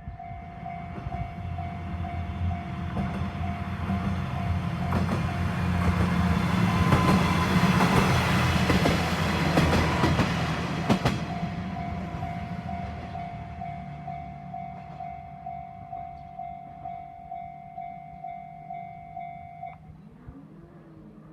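Japanese railway level crossing's electronic warning bell ringing in a steady repeating ding, about two a second, as a diesel local train passes. The train's engine and wheels rumble loudest midway and then fade, and the bell stops near the end.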